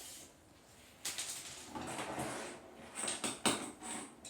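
Tools and fittings being handled under a sink during plumbing work: irregular scraping and rattling that starts about a second in, with a few sharp clicks a little past three seconds.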